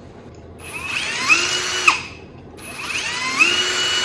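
Electric drill run twice, each time spinning up to a steady whine and winding down, boring out the eyelet of a battery cable so it will take the larger battery bolt.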